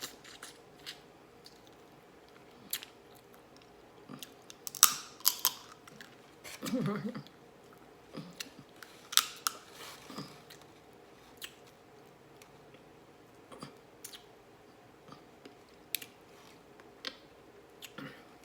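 A person chewing food close to the microphone: scattered wet mouth clicks and smacks, with a brief low hum near the middle.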